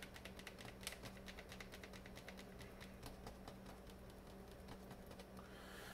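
Near silence: faint room tone with a steady low hum and faint, rapid ticking.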